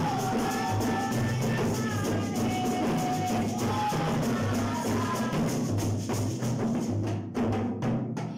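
Assiko music: skin-headed hand drums played in a fast, dense rhythm, with voices singing long held notes over the drumming. The drumming thins out into short gaps near the end.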